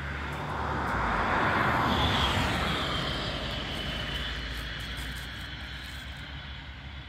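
A vehicle passing by: a rushing sound that builds to its loudest about two seconds in, with a faint high whine that drops slightly in pitch, then fades away.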